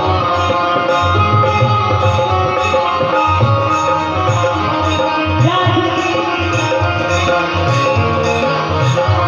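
Instrumental passage of a Hindi devotional bhajan: a melody instrument plays sustained notes over a steady drum beat, with no singing.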